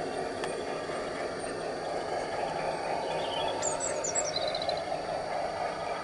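G-scale model ALCO diesel locomotive and its train rolling slowly along the garden-railway track, a steady rumble. A small bird chirps briefly a little over halfway through.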